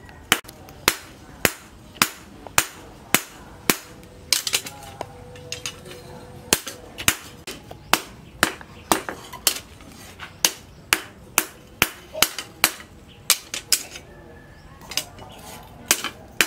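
Hand hammer striking a red-hot steel blade blank, cut from a tractor plough disc, on a steel post anvil: steady forging blows about two a second, each with a short metallic ring. The rhythm falters briefly around four seconds in and pauses shortly near the end.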